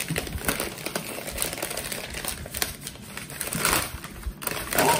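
Brown kraft paper bag crinkling and rustling as hands unfold it and pull it open, in irregular crackles.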